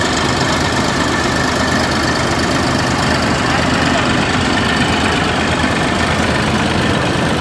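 Eicher 380 tractor's diesel engine running steadily.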